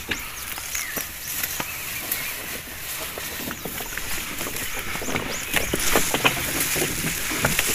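Leaves and branches rustling and brushing as people push uphill through dense brush, with many scattered knocks and clicks that get louder toward the end.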